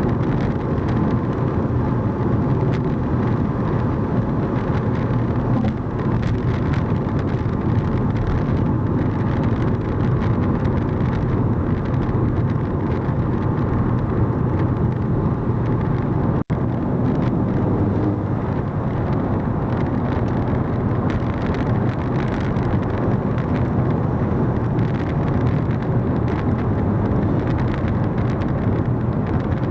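A car driving, with steady engine and road noise throughout. The sound cuts out for an instant about halfway through.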